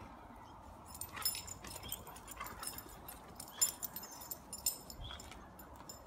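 A St Bernard puppy and a black Labrador moving about on a grass lawn, with a scattered run of light, high clicks and jingles from about one to five seconds in.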